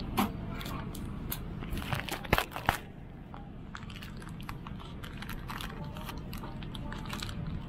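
Plastic wrapping crinkling and small items clicking as a leather amenity-kit pouch is handled and opened. There are a few sharper clicks about two to three seconds in, then a run of faint crackles, over the steady low hum of the airliner cabin.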